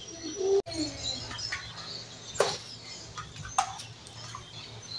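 Eating at the table: chewing, with two sharp clinks of a spoon against a ceramic bowl a second apart midway through, and faint bird chirps in the background over a steady low hum.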